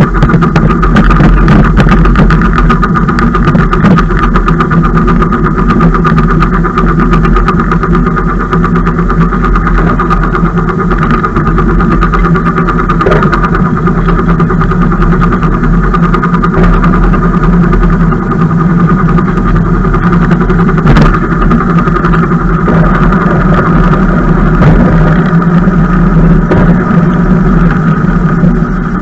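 An engine running steadily and loud at an unchanging pitch, with a few short knocks.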